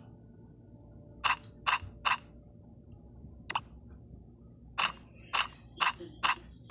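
A series of short, sharp clicks: three close together about a second in, one on its own in the middle, then four in quick succession near the end, over a faint steady hum.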